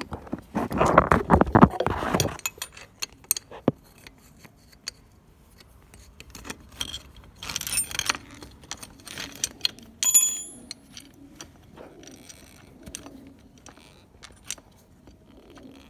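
Metal clicks and clinks of a steel spanner working the tight pipe nuts on the brass fittings of a three-trumpet air horn, with the horn parts being handled. There is a loud scuffling noise in the first two seconds and a sharp, briefly ringing metal clink about ten seconds in.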